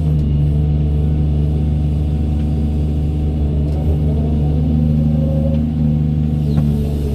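Doosan 210W wheeled excavator's diesel engine running steadily under work. Its note wavers slightly up and down around the middle.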